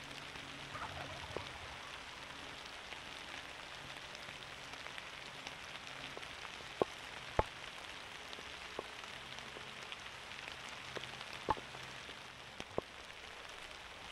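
Steady rain falling, a soft even hiss, with a few sharp ticks like drops striking something about halfway through and again later.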